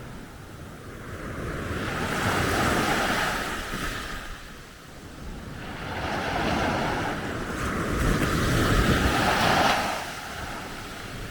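Sea waves breaking and washing up a shingle beach: two long surges that build and fade, with wind rumbling on the microphone.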